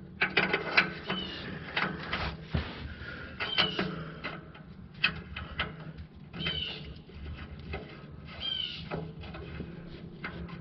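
Small metallic clicks and taps as an oxygen sensor is twisted and threaded by hand into the bung of a new catalytic converter, with brief high squeaks a few times over a steady low hum.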